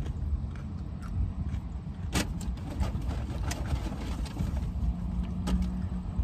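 Steady low hum of a car inside its cabin, with scattered small clicks and chewing sounds from someone eating. One sharp click comes about two seconds in and a smaller one near the end.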